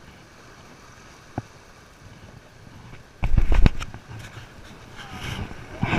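A quiet stretch with a single click, then about three seconds in a loud half-second burst of low rumbling thumps and crackle, with a few more knocks near the end.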